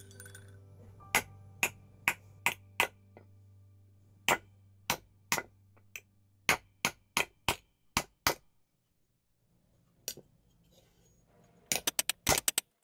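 Sharp metallic clinks of a steel bearing ball striking a silver spoon blank set in a hollow of a wooden dapping block, dishing out the bowl. The strikes come unevenly, about two a second, with a pause a little past the middle and a quick flurry near the end.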